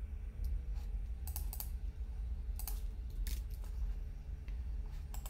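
Scattered clicks of a computer keyboard and mouse, some in quick pairs, over a steady low hum.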